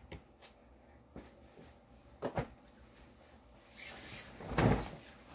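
Bed sheet being shaken out and flapped over a mattress: a rushing fabric whoosh about four seconds in, the loudest sound, after a few light knocks and taps of handling.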